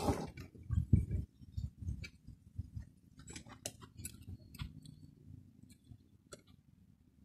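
Scattered light metal clicks and ticks as the stem and handlebars of a BMX bike are worked on while new bars are fitted, over a low rumble.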